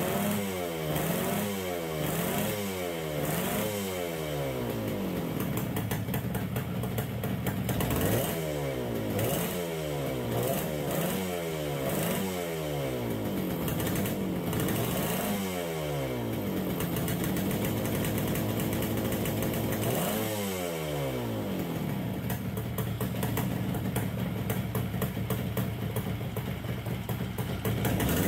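1969 Yamaha DS6's 250 cc two-stroke twin running just after a cold start and being blipped on the throttle over and over, the revs rising and falling about once a second, with a few spells of steadier running. It won't hold an idle and bogs when the throttle is opened, which the owner puts down to the carburetors.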